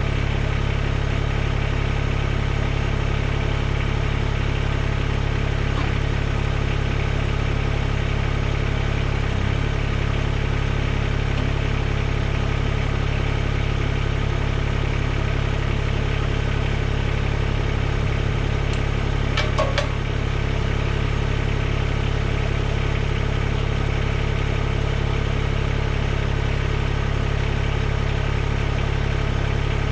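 Mahindra eMax 20S HST compact tractor's three-cylinder diesel engine idling steadily, with a few brief clicks about two-thirds of the way through.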